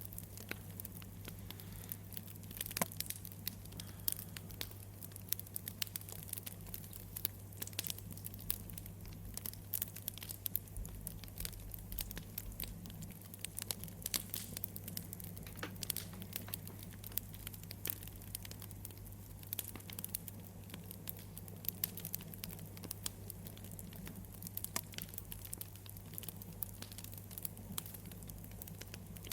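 Wood fire crackling, with irregular sharp pops and snaps over a steady low hum.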